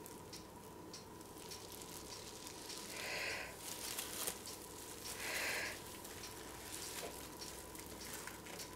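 Faint crinkling and rustling of plastic bubble wrap being peeled off a wet acrylic-painted canvas and laid back down, with two louder short rustles about three and five and a half seconds in.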